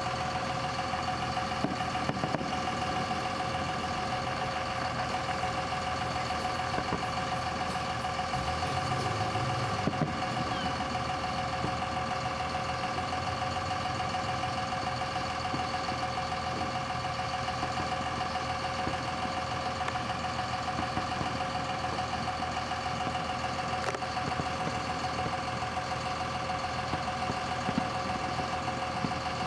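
A steady mechanical hum made of several fixed tones, with a few faint distant firework pops, two in the first few seconds and one about ten seconds in.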